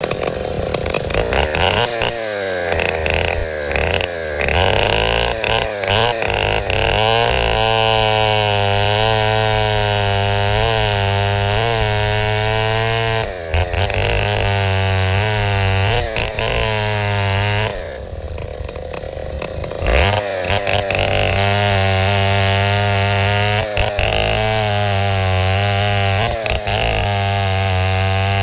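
Chainsaw engine running at high revs and cutting wood, its pitch wavering as the chain loads and unloads. The revs ease off briefly about halfway and again for a couple of seconds about two-thirds through.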